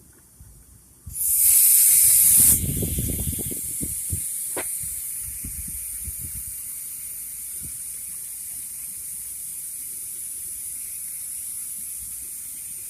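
Air hissing out of a tire as it is deflated: a loud hiss starts about a second in, drops after a second and a half, then goes on as a quieter steady hiss. There are some low handling thumps under it.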